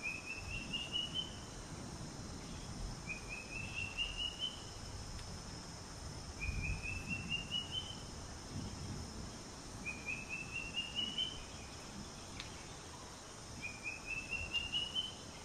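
A bird repeating the same short song phrase five times, about every three and a half seconds: a quick run of notes that climbs in pitch. Underneath is a low uneven rumble.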